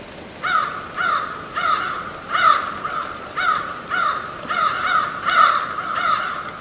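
A crow cawing over and over, about a dozen short caws at roughly two a second.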